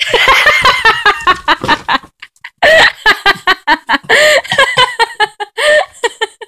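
People laughing and giggling in quick pitched bursts, with a short break about two seconds in.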